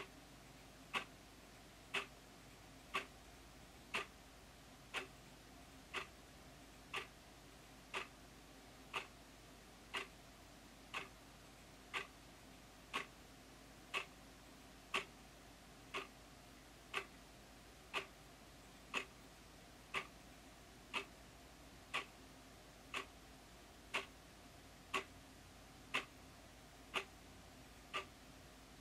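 Round white wall clock ticking loudly and evenly, one tick a second, as the second hand steps.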